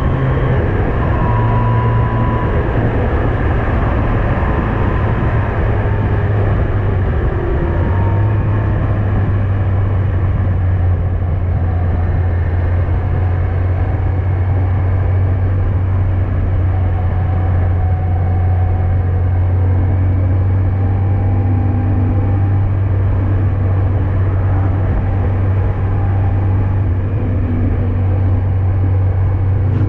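Yamaha FJR1300AE's inline-four engine running steadily while riding, with wind rush on the microphone. About seven seconds in the engine note dips and then settles slightly lower.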